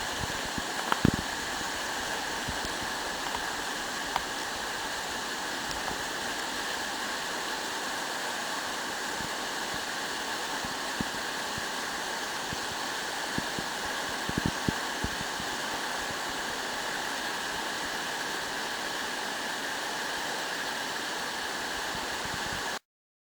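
Steady rush of flowing river water in a mountain stream, even and unbroken, with a few short low knocks right at the start and again around the middle.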